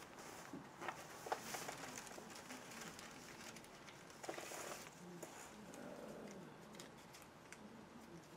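Sheets of paper rustling faintly as they are leafed through, in short scattered bursts with a few small clicks, the strongest about a second and a half in and again about four and a half seconds in.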